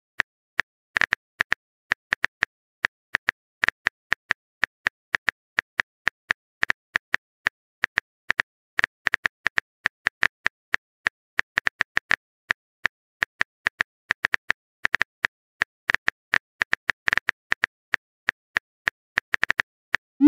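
Phone-keyboard typing sound effect: a long run of short, sharp clicks at an irregular pace of about four or five a second.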